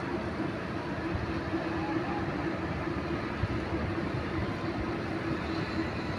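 Zipline trolley running along the cable: a steady rumbling whir with a constant hum.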